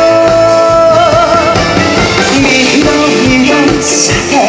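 Live Korean trot song with a band: a singer's held note with vibrato ends about a second in, then the band plays on with a steady beat, and a cymbal-like crash comes near the end.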